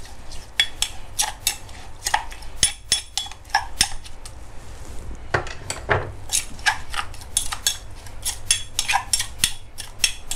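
A metal spoon stirring and scraping in a stone mortar, a run of irregular clinks against the stone, with one heavier knock about six seconds in. The spoon is mixing sugar into a chili, garlic and lime dipping sauce to dissolve it.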